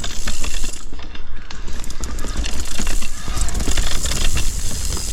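Mountain bike riding a gravel single-track trail: tyres crunching over gravel, with a dense run of clicks and rattles from the bike and a constant low wind rumble on the microphone.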